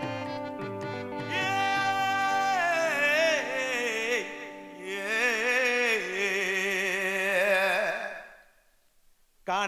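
Music: a solo voice sings long, ornamented notes with a wide vibrato over held instrumental tones, after drum strokes that carry on for about the first second and a half. The music fades out about a second before the end, leaving a short near-silent gap.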